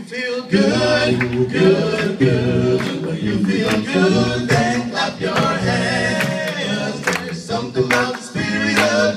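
Several voices singing a cappella in harmony, a low bass part held under higher voices.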